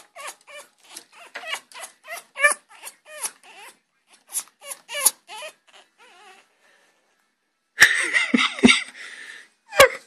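Pet parrot making rapid short whining calls, about four a second, that fade out a little past the middle. Then comes a loud rustling clatter with a couple of thumps about eight seconds in, and a sharp knock near the end.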